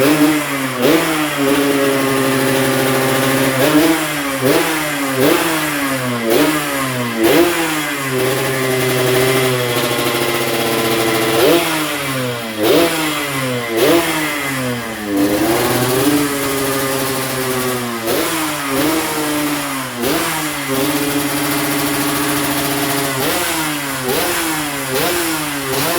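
Yamaha RX-King's single-cylinder two-stroke engine being revved in many quick throttle blips, its pitch shooting up and dropping back each time. Between blips it settles into short, steady stretches at idle.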